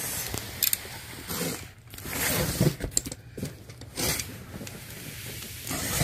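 A box cutter slitting the packing tape along a cardboard box's seam, in several short scraping, ripping strokes, with the cardboard rustling.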